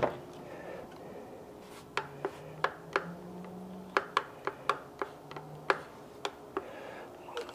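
A dozen or so short, sharp clicks and knocks, starting about two seconds in, as a plastic-cased onboard marine battery charger and its cables are handled and set down into a boat's battery compartment.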